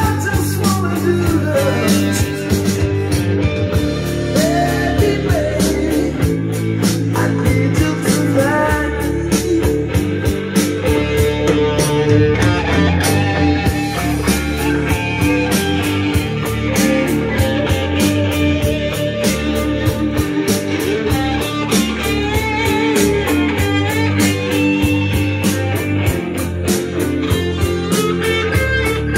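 Rock music with guitar and a steady drum beat, played through a vintage Pioneer integrated amplifier stereo system.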